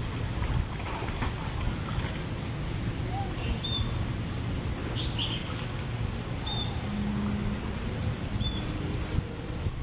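Outdoor ambience: a steady low rumble, with a bird's short high chirp repeated every two or three seconds.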